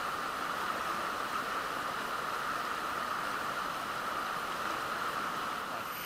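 Rocky jungle stream rushing steadily over small rapids and a little waterfall.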